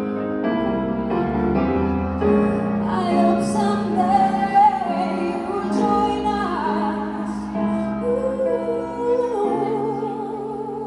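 A woman singing long held notes with vibrato over piano accompaniment.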